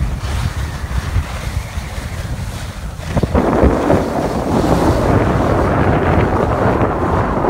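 Wind buffeting the microphone during a ski run, with the rushing hiss of skis sliding over snow; the rushing grows louder about three seconds in.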